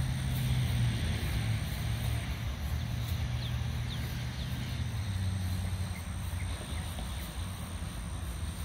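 Steady low rumble with a faint hum, shifting slightly about five seconds in, with a few brief faint bird chirps over it.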